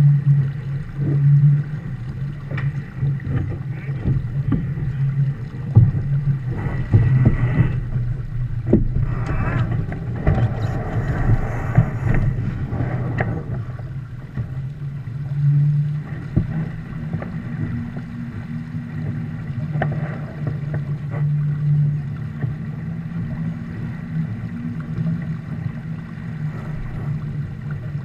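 Water rushing along a Viper sportboat's hull and wind buffeting the microphone as the boat sails, with a steady low rumble. The wash grows louder with a few knocks and splashes through the middle, then settles.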